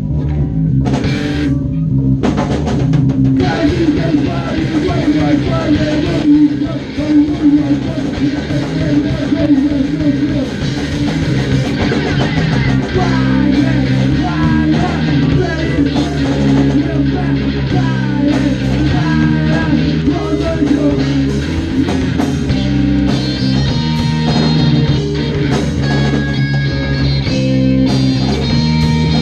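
Three-piece punk band (electric bass, electric guitar and drum kit) playing together live in a small rehearsal room.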